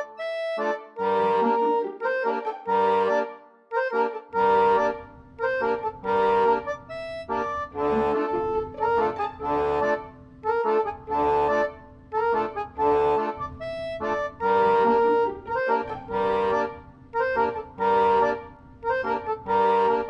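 Background music led by an accordion: a rhythmic melody of short, changing notes, with a bass line joining about four seconds in.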